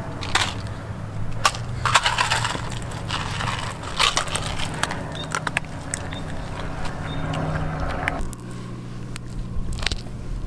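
Irregular crunching and crackling with sharp clicks, ending with a small pill being crushed against concrete.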